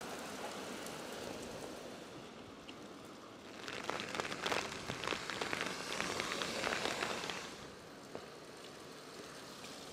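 A steady low noise, with about four seconds of dense, irregular crackling and rustling in the middle.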